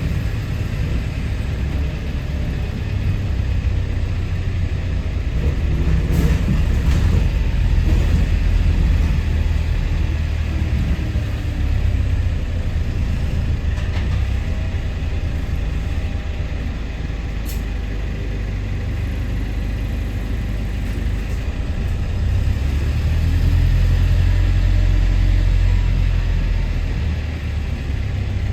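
Double-decker bus heard from inside while it travels: a steady low engine and road rumble that swells and eases twice as the bus pulls and slows.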